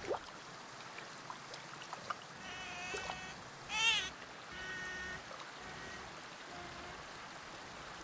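Otter squealing: a run of high-pitched squeaks from about two and a half seconds in, the loudest near the middle sliding up and then down in pitch, followed by a shorter held squeal and one faint call near the end.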